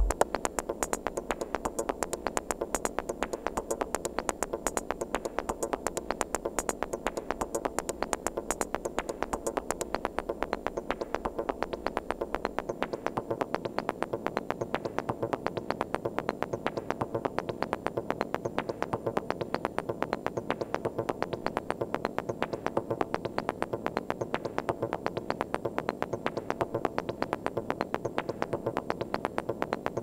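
Korg Volca Sample sequencer playing a stripped-back techno loop with the kick drum muted: a quiet, steady run of short percussive sample hits, about eight a second. The high sizzle fades out about ten seconds in, and a low layer drops out a few seconds later.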